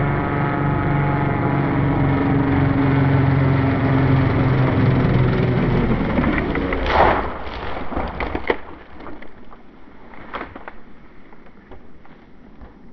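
Twin four-stroke glow engines of a large RC Cessna 337 Skymaster model, an O.S. 95 in front and a Magnum 91 behind, running steadily in flight, then the note changes and cuts out about six and a half seconds in. About seven seconds in comes one loud impact as the model hits the ground after its tailplane fluttered and came loose, followed by a few scattered cracks and knocks.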